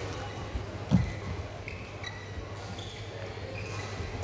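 Badminton footwork on a synthetic court mat: a heavy footfall thud about a second in, then several short, high shoe squeaks, over a steady low hum.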